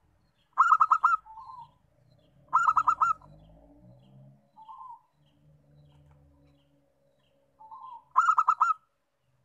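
Zebra dove (perkutut) singing: three phrases of about five quick, ringing coos each, about half a second in, about two and a half seconds in and near the end, with softer single coos between them.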